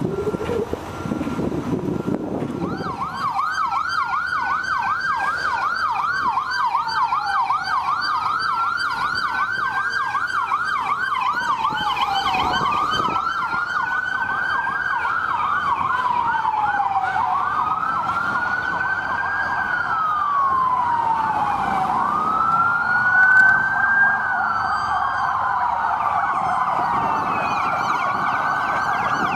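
Police car siren sounding a fast yelp over a slower wail that rises and falls about every four to five seconds. It comes in about two and a half seconds in and keeps going.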